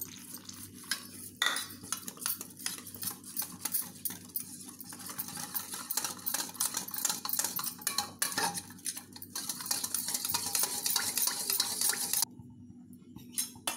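A wire whisk stirring cornflour and water in a stainless steel bowl, with rapid, continuous clinking and scraping of the wires against the metal. It stops about a second and a half before the end.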